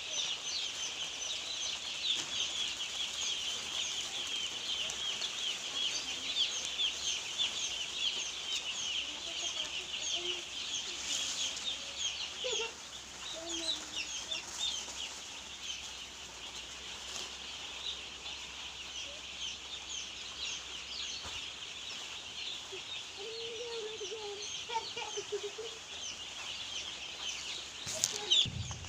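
A crowd of poultry chicks peeping without pause, many short high cheeps overlapping, busiest in the first half. A brief thump near the end.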